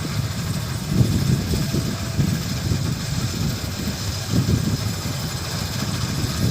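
Combine harvester engine running, with a steady rumble that surges unevenly.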